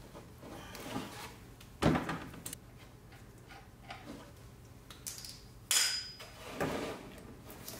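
Hand tools and metal parts clinking as a ratchet and socket take a nut off an engine mount: a few sharp metallic clinks, the loudest about two seconds in and another near six seconds with a brief ring.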